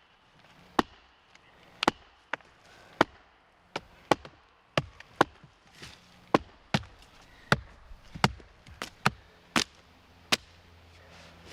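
Repeated sharp wooden strikes of a weathered log being split by hand with an axe and wooden wedges, about seventeen blows at an uneven pace, roughly one every half second to a second.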